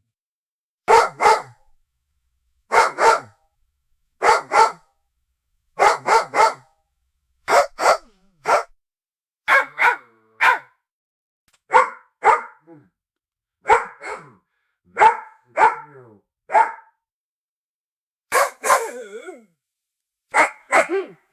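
A dog barking in quick pairs and triples, one group every second and a half or so, with dead silence between the groups. Near the end there is one longer, drawn-out bark.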